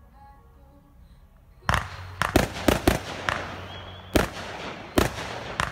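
Aerial fireworks going off: after a quiet first second and a half, a quick run of sharp bangs, about nine in four seconds.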